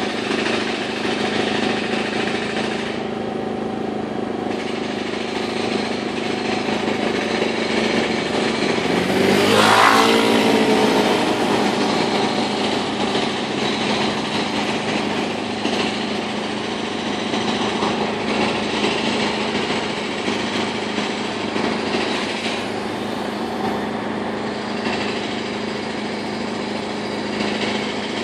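Street traffic over a steady hum, with one vehicle passing close by about ten seconds in as the loudest moment, its engine pitch shifting as it goes by.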